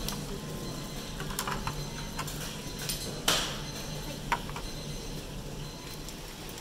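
Tableware clinking and knocking, with a louder clatter about halfway through and a sharp click a second later, over a steady low hum.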